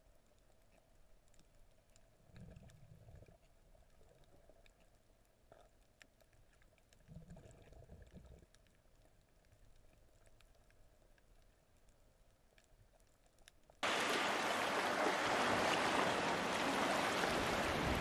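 Muffled underwater ambience from a camera held below the surface, with faint scattered clicks and two brief low rumbles. About fourteen seconds in, a loud, steady rushing water noise cuts in suddenly and holds for about four seconds before stopping abruptly.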